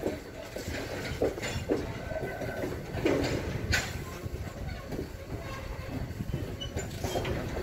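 Freight train being switched in a rail yard: a steady low rumble with irregular metallic knocks and brief squeals, the loudest clank about three seconds in.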